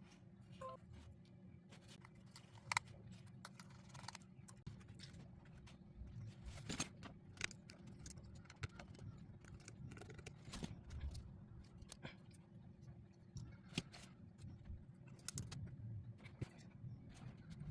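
Faint, irregular small clicks and light taps of handling, over a low steady hum.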